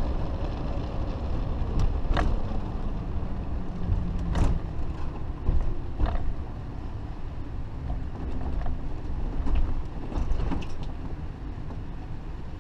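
Fleetwood Flair Class A motorhome's diesel engine running as it slows to pull off the road, its note sinking a little in the first few seconds. Several sharp creaks and knocks come from the coach along the way.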